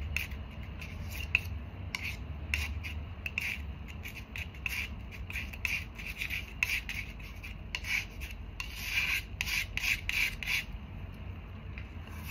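Oil paint being mixed on a palette: many short, irregular scraping and rubbing strokes, busier about eight to ten seconds in.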